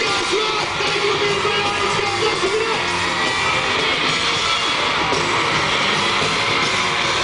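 Live pop band playing at full volume, electric guitar and drums with singing over it, as heard from the audience at a concert.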